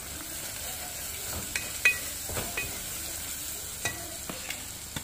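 Onions, garlic and ground spices frying in oil in an aluminium pot, stirred with a wooden spatula: a steady sizzle with several sharp knocks from the spatula striking the pot, a few ringing briefly.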